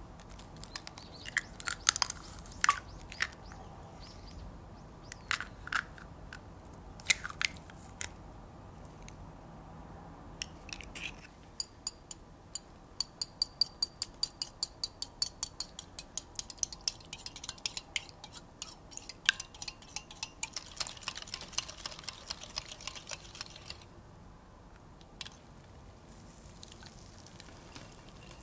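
Eggs cracked against a glass bowl, with a few sharp clicks, then a coil whisk beating them in the glass bowl with a quick, even clinking of about four or five strokes a second, turning into a denser swishing. Near the end there is a fainter hiss as the beaten egg is poured through a mesh strainer.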